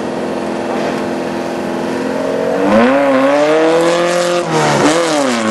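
Subaru Impreza STI's turbocharged 2.5-litre flat-four engine under hard driving. It holds a steady note, then revs sharply higher about halfway in as the car accelerates, drops briefly near the end and climbs again.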